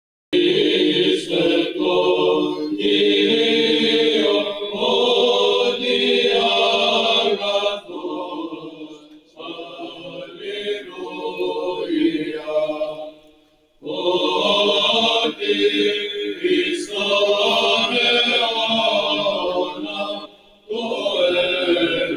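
Unaccompanied Byzantine-style Orthodox chant, voices singing long held lines; it starts just after the opening silence, drops quieter for a stretch in the middle, then swells again.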